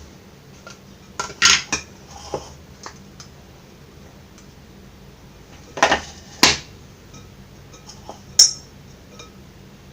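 Kitchen utensils and metal dishes clinking and knocking: a few scattered strikes with quiet stretches between them, two louder knocks about six seconds in and a sharp clink near the end.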